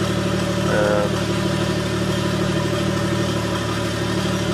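Mercedes 300TE engine, Megasquirt-managed and running on LPG, idling steadily at a low idle of about 570 rpm, heard from inside the car. A brief higher-pitched sound rises over it a little under a second in.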